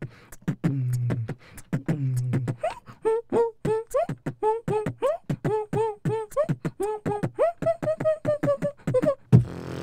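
Beatboxing into a handheld microphone, a pagode (samba) groove made with the mouth: steady sharp clicks and snare-like hits over low hummed bass notes, which change to short pitched sung notes about three seconds in, with a hissing burst near the end.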